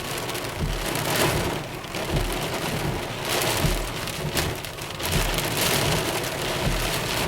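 Heavy rain pouring down steadily in a thunderstorm, a dense hiss of drops beating on surfaces.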